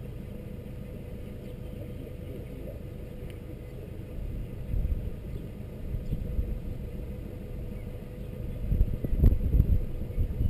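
Low steady rumble of the sailboat's inboard engine ticking over, with wind gusting across the microphone from about four seconds in, strongest near the end.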